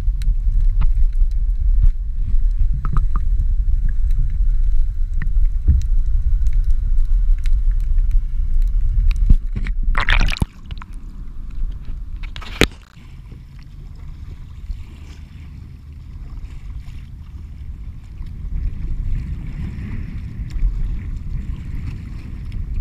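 Muffled low rumble of water heard through an action camera held underwater, then two loud splashes about ten and twelve seconds in as it breaks the surface beside the kayak. After that, quieter sloshing of water around the kayak.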